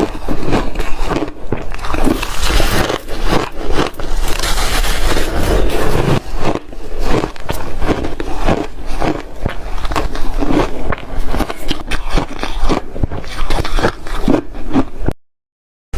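Ice being chewed close to the mouth: a continuous run of crisp crunches and crackles. It breaks off into sudden silence for about the last second.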